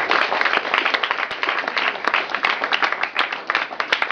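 A small group applauding: many hands clapping quickly and unevenly, the claps getting sparser near the end.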